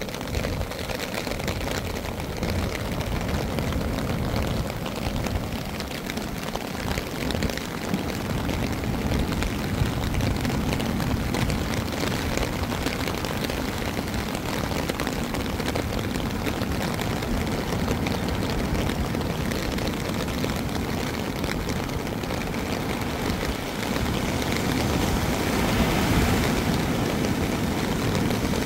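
Steady rushing noise of rain and wind outdoors, with a low rumble underneath, swelling slightly near the end.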